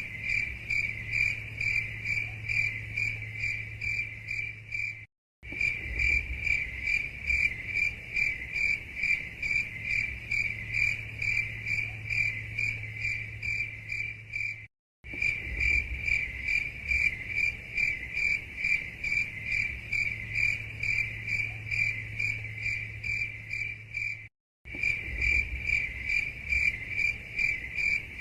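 Crickets chirping: a fast, even run of high-pitched chirps over a faint low hum. The sound cuts out to silence for a split second three times, about ten seconds apart.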